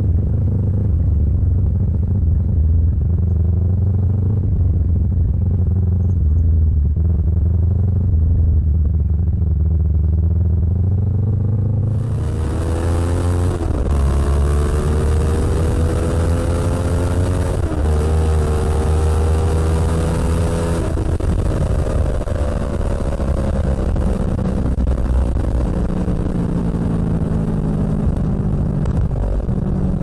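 Kawasaki Ninja 650's parallel-twin engine through an Arrow aftermarket exhaust: running low and steady at first, then, about twelve seconds in, revving hard at full throttle with a rising pitch that drops at two upshifts and climbs again, over a loud rush of wind. Near the end it eases back to a lower, steadier run.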